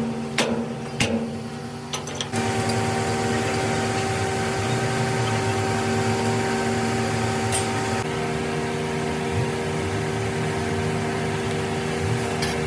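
A few sharp metallic knocks, then a machine starts about two seconds in and runs with a steady hum of several held tones.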